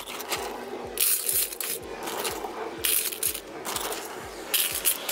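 Pine litter pellets scooped from their bag and poured into a litter pan, rattling and scraping in a series of short pours.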